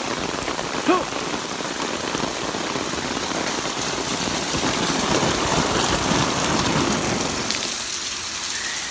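Heavy rain falling steadily in a storm, a dense even hiss, with one brief pitched sound about a second in.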